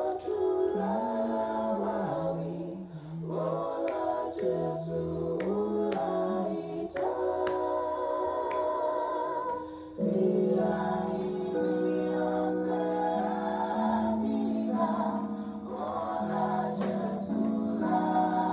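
Recording of a vocal group singing in close harmony, a lead line over backing voices. About halfway through it turns louder, into fuller held chords.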